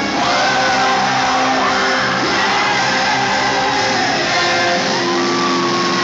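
Rock band playing live through a concert PA, with sustained notes and pitch slides, heard from inside a crowd that shouts and whoops along.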